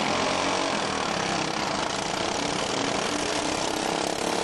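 Engines of modified racing riding lawn mowers running, a steady loud engine noise with shifting pitch.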